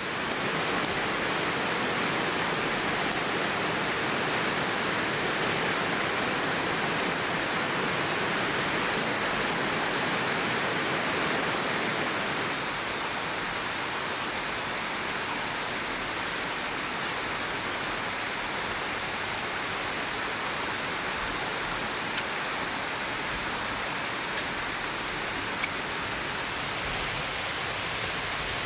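Steady rushing noise of flowing water, a little quieter after about twelve seconds, with a few faint clicks in the second half.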